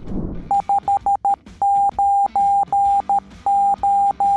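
Morse code (CW) tone beeping out the SOS distress prosign: a single steady pitch keyed in short dits, then longer dahs.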